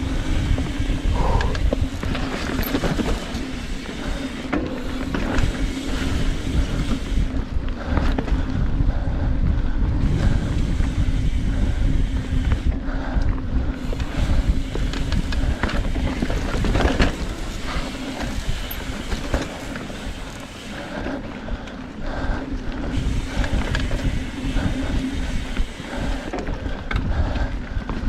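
Mountain bike riding fast over a dirt trail: tyres rolling over dirt and roots, with the bike rattling and knocking over bumps and wind buffeting the helmet camera's microphone.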